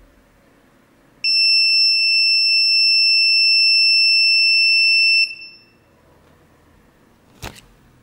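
Passive piezo buzzer sounding one continuous high-pitched alarm tone for about four seconds, starting about a second in and cutting off suddenly. It is the homemade MQ-3 smoke detector's alarm, set off by smoke at the sensor. A couple of light knocks follow near the end.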